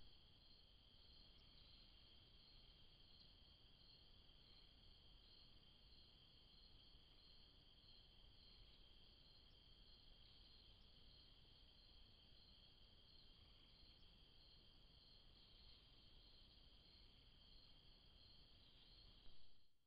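Faint, steady chorus of crickets: one continuous high trill with a second, pulsing trill just above it.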